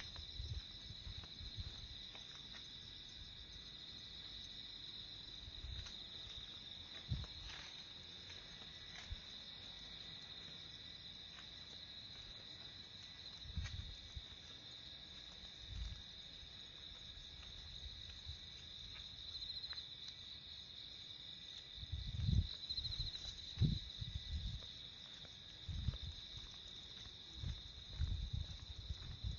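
Insects chirring steadily in a single high band. Soft low thumps and rustles come and go, more of them in the last several seconds.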